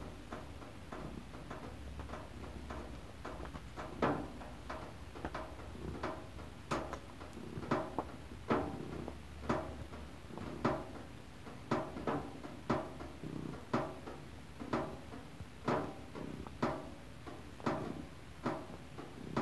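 A cat giving short, rhythmic calls about once a second while mounting and treading a plush teddy bear.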